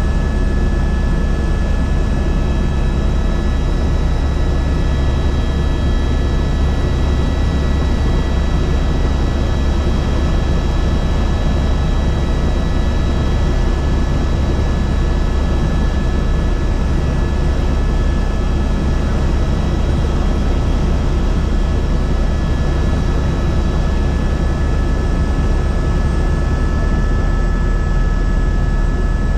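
Helicopter in flight: a steady, loud, deep drone with a constant high whine over it, unchanging throughout.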